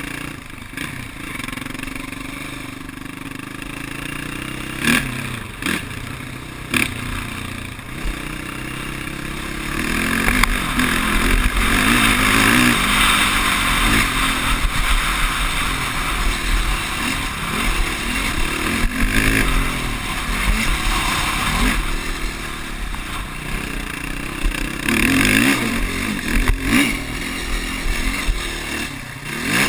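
Sport quad (ATV) engine revving up and down while riding a dirt track, with a few sharp knocks about five to seven seconds in. It gets louder from about ten seconds in.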